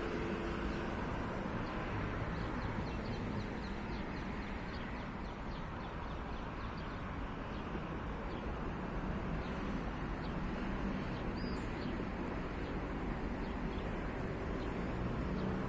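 Steady outdoor background noise: a continuous rumble like distant traffic, with a few faint, brief bird chirps.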